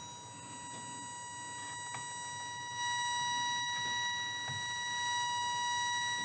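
Philips RF8 valve radio's loudspeaker giving out the steady test tone of a modulated signal-generator carrier at 1500 kHz, with a little hiss under it. The tone gets louder about three seconds in as the antenna trimmer is peaked for maximum signal.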